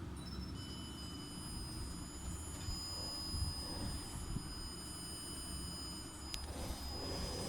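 Arduino buzzer sounding a steady, continuous high-pitched tone: the warning that the LDR is reading more than 80 lux, as when a fridge door is left open. A single sharp click about six seconds in.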